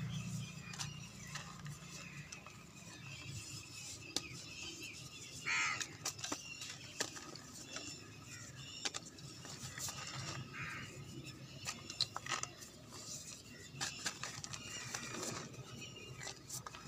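A large block of gym chalk being crumbled, giving irregular crisp crackles and crunches. A short high squeak sounds about five and a half seconds in.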